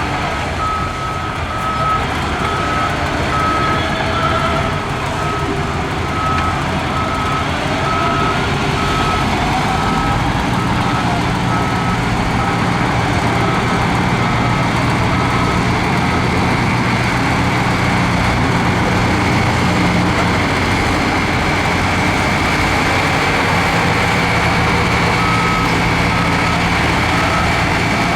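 Heavy diesel earthmoving machinery running steadily, with a reversing alarm beeping in an even, repeating rhythm for about the first half and again briefly near the end.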